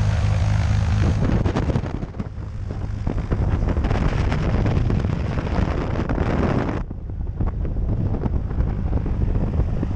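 Single-engine piston plane idling on the ground, a steady low drone, with propeller wash hissing on the microphone and clothing rustling and knocking as people climb into the cabin. About seven seconds in the hiss cuts off suddenly, leaving the engine drone.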